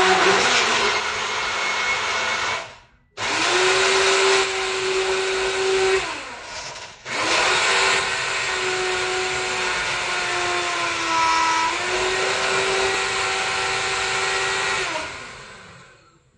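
High-speed blender (破壁机) pureeing pumpkin, its motor running in three runs with short stops about three and seven seconds in, then spinning down near the end. The whine sags slightly in pitch midway through the last run as the load bears on the blades.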